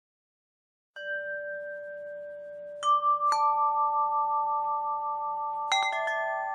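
About a second of silence, then slow single chime-like notes, each struck and left ringing so that they build into a sustained chord, with a quick cluster of notes near the end.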